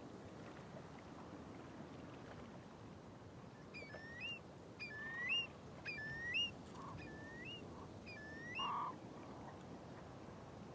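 A bird calling: a run of five short, hooked whistled notes about a second apart, over a steady background hiss.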